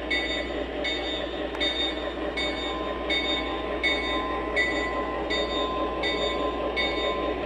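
Wheels of an O gauge flat car rolling along model railway track, a steady rolling rumble with a short metallic click-ring about every three-quarters of a second.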